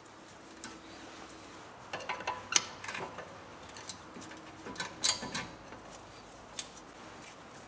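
Scattered metallic clinks and clicks of hand tools and brake parts being handled during rear brake pad work, in small irregular groups with the loudest cluster a little after the middle.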